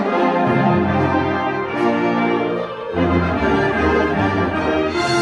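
Concert wind band playing full, sustained chords with the brass prominent. Low notes come in about half a second in, and there is a short break just before the three-second mark before the next loud chord.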